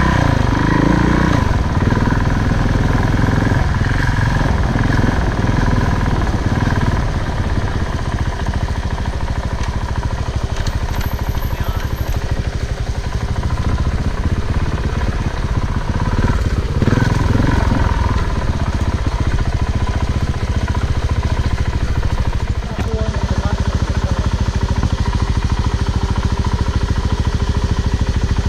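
Off-road motorcycle running as it rides a dirt trail, a continuous rumble with the pitch rising briefly near the start and again just past halfway.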